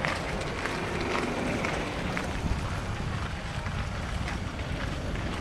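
Wind buffeting the microphone, a steady rushing rumble, with a few faint distant voices underneath.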